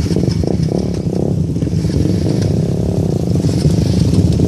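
Motor vehicle engine and road noise, a steady low rumble.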